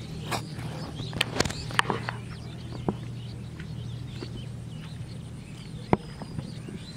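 Birds chirping over a steady low hum, with a quick cluster of sharp clicks a second or two in and another single click near the end.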